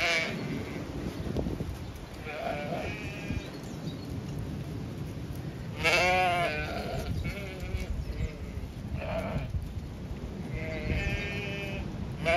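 Zwartbles sheep bleating, about five wavering calls from different animals, the loudest about six seconds in, over a low steady wind rumble.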